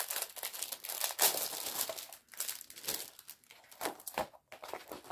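Packaging of a diamond painting kit being handled and opened, crinkling in irregular bursts.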